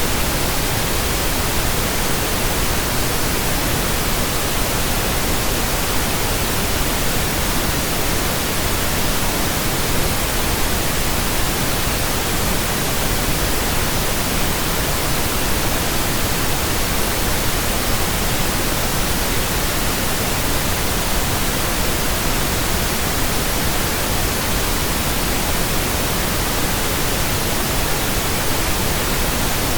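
Steady pink noise, a soft static hiss like a radio not tuned to a station, even and unbroken throughout.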